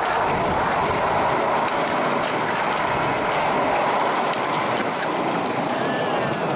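Skateboard wheels rolling on concrete: a steady, even rolling roar with no pops or landings.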